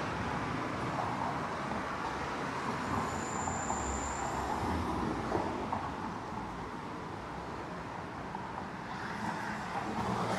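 City street traffic: cars and buses passing with steady road noise. A brief thin high-pitched squeal sounds about three seconds in.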